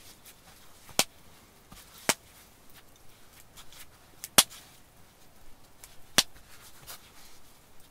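Burning campfire wood popping sharply four times, the loudest about halfway through, with fainter crackles between.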